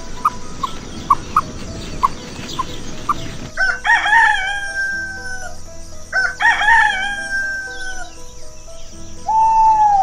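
Rooster crowing twice, each cock-a-doodle-doo lasting about a second and a half. It is preceded by a few seconds of short, evenly spaced chirps over a noisy background, and a single held call comes near the end.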